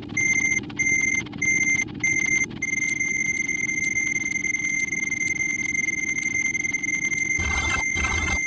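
A layered mix of sound effects. A high electronic alarm-style beep repeats about one and a half times a second, then holds as one steady tone, over a low hum. Near the end a louder pulsing sound with a deep low part joins in.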